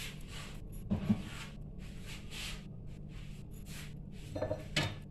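Soft handling noises: rustles and a couple of light knocks, about a second in and near the end, over a steady low hum.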